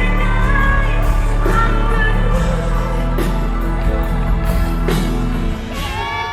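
Live pop music with a singing voice over steady bass and regular drum hits. The bass drops out about five and a half seconds in.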